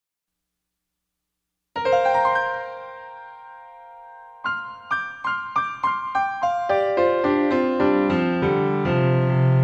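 Electric piano or keyboard introduction. A chord is struck about two seconds in and left to ring and fade, then a run of single notes comes in at about three a second, with held bass notes joining near the end.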